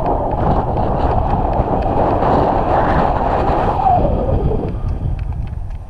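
Wind buffeting the microphone of a camera riding along on a moving bicycle: a loud, steady rumble that eases off about four and a half seconds in, with faint regular ticking near the end.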